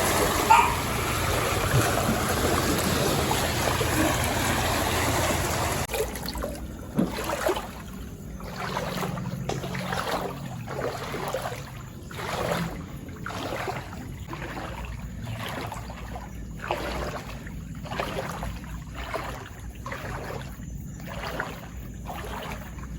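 A steady rushing noise that cuts off about six seconds in, then a person wading through floodwater, each step a splash at a little over one a second.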